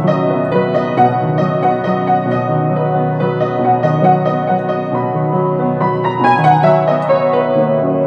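Instrumental piano music: a melody of struck notes over held low notes, several notes a second.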